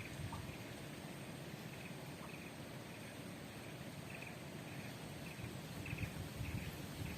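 Riverside ambience: short high chirps from a small animal repeat about once a second over a low, steady rumble.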